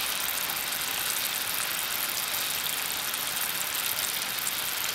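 Vegetable soup heating in a pan on the stove, giving a steady hiss as it comes to the boil.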